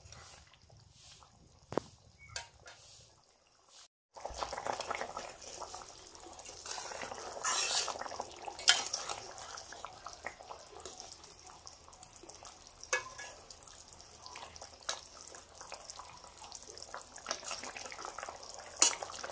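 Thick curry gravy with fritters in it boiling in a kadai, a dense bubbling and spluttering that starts suddenly about four seconds in, after a quieter stretch with a few faint clicks. Now and then a metal spatula clicks against the pan.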